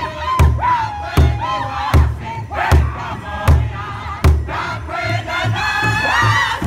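A powwow drum group singing together in loud unison while beating one large shared drum. The drum keeps a steady beat of about one and a third strokes a second, then quickens to about three a second a little past halfway.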